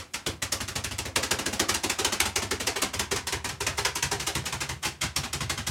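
Hot oil sizzling and crackling steadily in a frying pan, a dense rapid spatter of pops.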